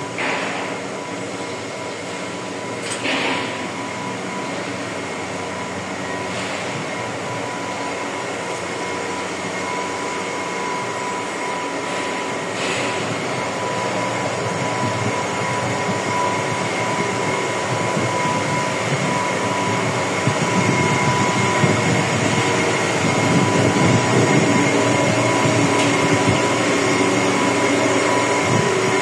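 Steady industrial drone of a large dust collector's machinery and airflow, with a steady whine, growing louder in the second half. A few short hissing bursts break in about 3, 6 and 12 seconds in.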